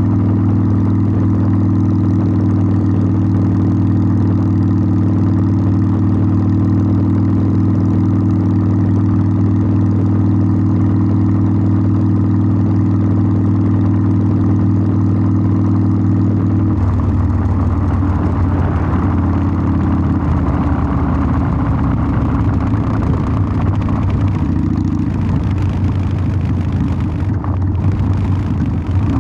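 Harley-Davidson Sportster 1200's air-cooled V-twin running through its exhaust, holding a steady low note for over half of it. About two-thirds of the way in, the note turns rougher and less even, with rising wind hiss, as the bike gets moving.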